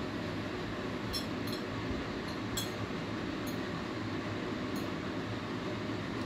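A metal fork clinking against a small ceramic plate about six times while noodles are picked up, over a steady low background hum.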